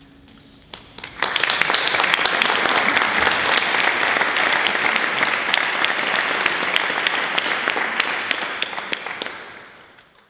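Audience applauding: a few scattered claps, then full applause from about a second in, which dies away near the end.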